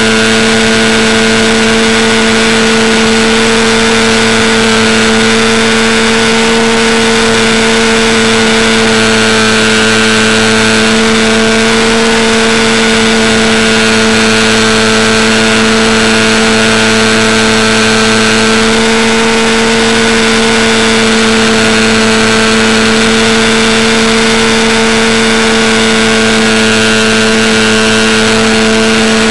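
Art-Tech Coota RC model plane's electric motor and propeller running at steady flying power, picked up by a camera on board the plane, a constant drone over a steady hiss of air.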